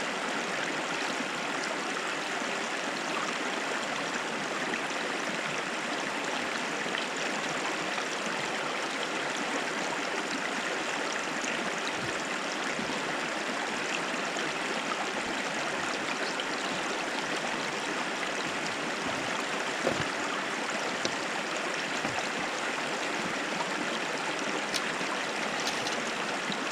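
Small creek rushing over rocks: a steady, unbroken rush of running water.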